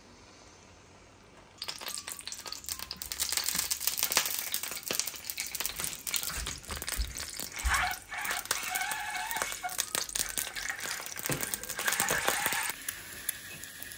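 Peeled boiled eggs frying in shallow hot oil in a pan: a steady sizzle with dense crackling and spitting. It starts about a second and a half in and cuts off shortly before the end.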